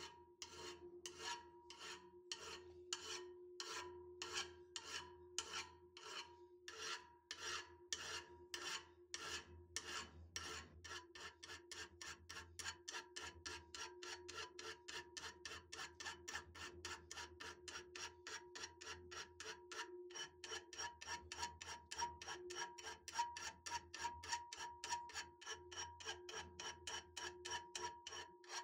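Hand file rasping back and forth on the twisted steel spiral of an auger drill bit, in even strokes. The strokes come about two a second at first and speed up to about three a second after about ten seconds, over a faint steady tone.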